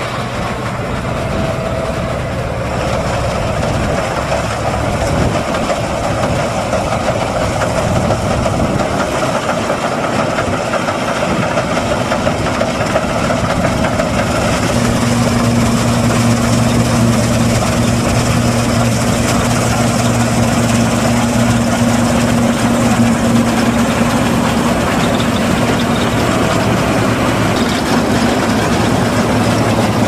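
New Holland TX62 combine harvester running while harvesting wheat: a steady drone of its diesel engine and threshing machinery. The hum gets louder and steadier from about halfway through.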